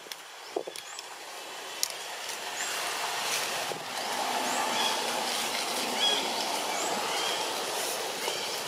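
Steady outdoor rushing noise that swells over the first three seconds and then holds, with short high chirps scattered over it.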